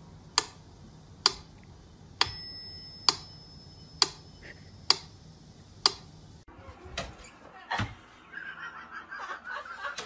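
Sharp, evenly spaced ticks, about one a second, like a clock, with a faint high ringing tone for a second or so partway through. A couple of soft thumps follow near the end.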